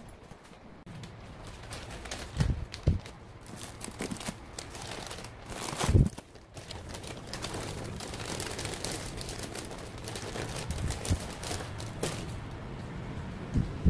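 Clear plastic cookie wrappers crinkling as bagged cookies are handled on a wooden table and packed into a paper bag. There are several knocks, the loudest about six seconds in.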